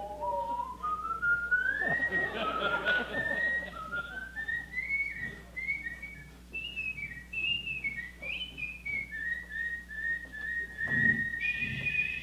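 A person whistling a single line of short notes that climbs steadily in pitch, then repeats one high note several times before jumping higher near the end.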